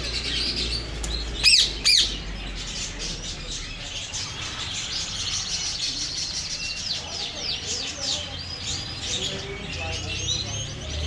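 A flock of ring-necked parakeets chattering and chirping continuously, with two loud shrill calls about a second and a half and two seconds in.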